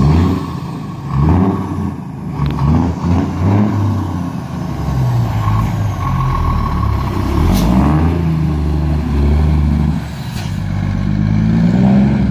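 Heavy truck tractor unit driving past and pulling away, its diesel engine rising in pitch and dropping back several times as it works up through the gears. Two short sharp clicks come about seven and ten seconds in.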